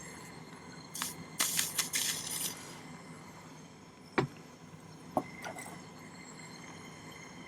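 Small metal pieces and tools clinking and scraping on a jeweller's bench: a click about a second in, a short hissing, rattling stretch just after it, then two sharp knocks.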